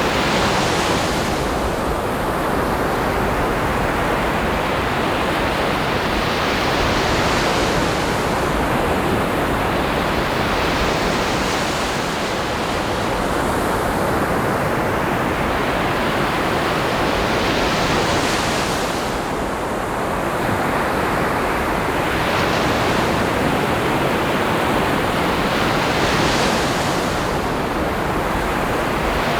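Ocean surf: a steady wash of waves with a breaking wave hissing up every several seconds, about five times.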